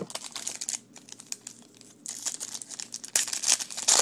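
Wrapper of a trading card pack being torn open and crinkled, with many sharp crackles, loudest near the end.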